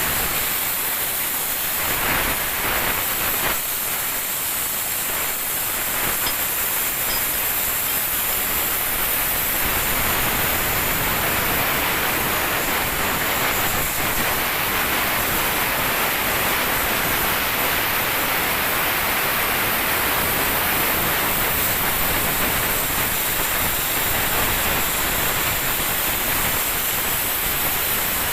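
Air plasma cutter cutting thick steel plate: a loud, steady hiss of the arc and compressed air jet.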